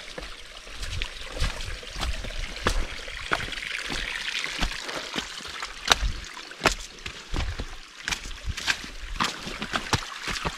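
Water running over rocks in a mountain stream, a steady rushing hiss, with scattered sharp clicks and knocks throughout.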